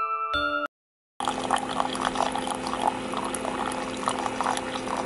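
Coffee maker brewing into a ceramic mug: a steady machine hum under the splashing and gurgling of the coffee stream filling the mug. It starts about a second in, after a few notes of chiming music that cut off abruptly.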